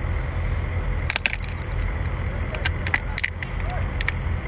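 Cooked crustacean shell being cracked and peeled apart by hand: a scattered series of sharp cracks and snaps, thickest around the middle, over a steady low rumble.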